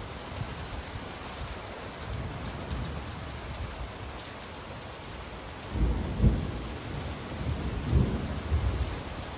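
Steady rain during a thunderstorm, with low thunder rumbles that swell about six seconds in and again about eight seconds in.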